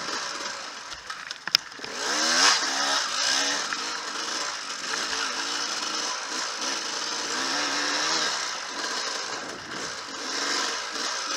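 Enduro dirt bike engine revving up and down as it is ridden over rough trail, with a sharp knock about a second and a half in and the revs climbing hard just after.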